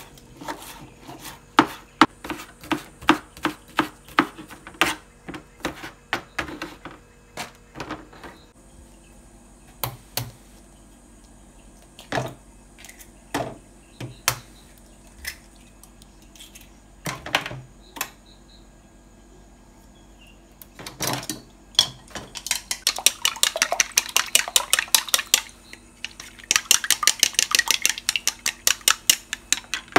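Kitchen knife chopping spring onions on a plastic cutting board, about two to three chops a second for the first several seconds, followed by a few scattered knocks and taps. Near the end, wooden chopsticks beat eggs in a ceramic bowl with rapid clicking against the bowl, in two runs.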